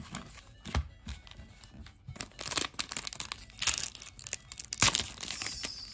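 Foil wrapper of a Japanese Pokémon Infinity Zone booster pack crinkling and crackling in the hands. There are a few light clicks at first, then dense crackling from about halfway in.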